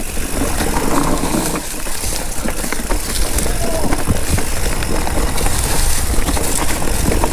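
Electric mountain bike riding down rough singletrack: continuous rolling noise of tyres over dirt and rocks, with frequent rattles and clacks from the bike.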